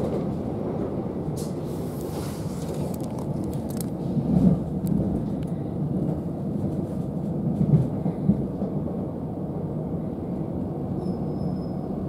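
Running noise heard from inside a c2c Class 357 Electrostar electric multiple unit: a steady low rumble of wheels on rail, with light clicks and louder knocks about four and a half and eight seconds in.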